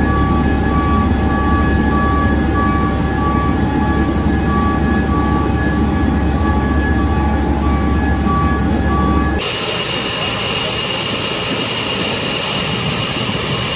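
Steady machinery noise in a military transport's cargo hold as a fire truck is driven aboard: a deep rumble with steady tones and a repeating beep. About nine seconds in it changes abruptly to the steady whine and hiss of the C-5 Galaxy's running jet engines outside the aircraft.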